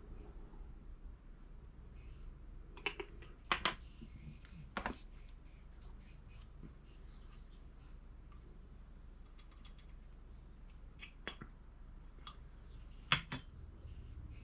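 A few scattered sharp clicks and taps of shotshell reloading components being handled, hulls, wads and shot, over a faint steady low hum.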